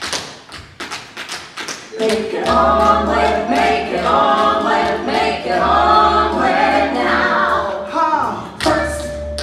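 Musical-theatre ensemble number: a quick string of sharp taps for about two seconds, then the cast singing together over backing music with a regular bass pulse.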